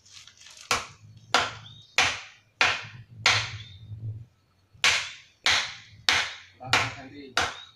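Hammer blows in two runs of five, about one every two-thirds of a second, with a short pause in the middle. Each blow is sharp and rings briefly.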